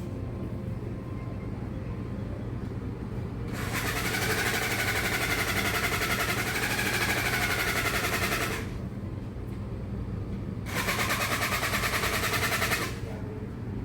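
A small motorised device buzzing in two runs, one of about five seconds starting a few seconds in and a shorter one near the end, with a rapid pulsing and a steady low hum underneath.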